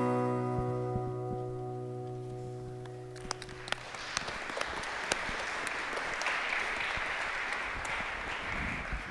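A worship band's last chord on keyboard and guitars rings and fades out over about three and a half seconds, then the congregation applauds for about five seconds.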